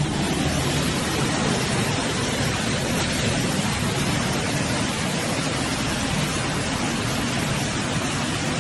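Steady rushing noise of heavy rain and floodwater.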